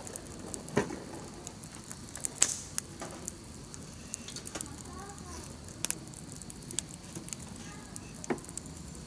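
Wood campfire crackling over a steady hiss, with sharp pops scattered through; the loudest pop comes about two and a half seconds in.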